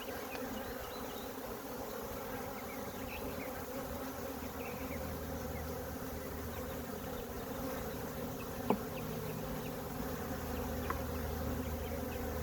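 Honey bees buzzing in a steady hum from an open nuc hive, with one sharp click about nine seconds in.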